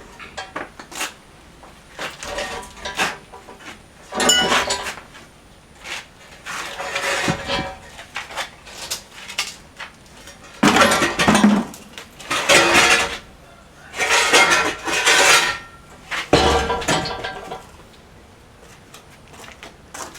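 Irregular metallic clanking and scraping, some of it ringing, as steel parts of a power hammer are knocked loose and shifted during dismantling.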